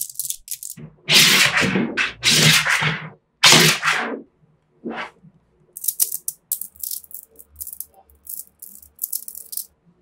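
A handful of small metal magnetic balls rattled and shaken in the hands in three loud bursts and a shorter fourth, then many quick high clicks as the balls snap together and are pulled apart.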